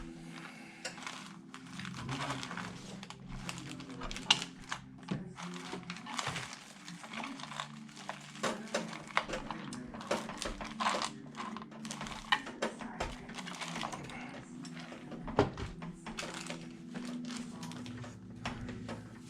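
Irregular small clicks and light clatter of PC hardware and screws being handled and fitted, over a steady low background hum of tones.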